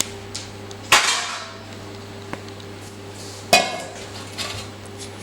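Plates and cutlery clinking and clattering: two sharp clanks, about a second in and about three and a half seconds in, with a few lighter clicks between, over a steady low hum.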